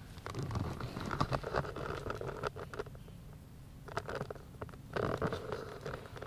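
Footsteps crackling and scuffing over debris-strewn ground, in two runs of quick small crackles: one of about two and a half seconds, then a shorter one of about a second near the end.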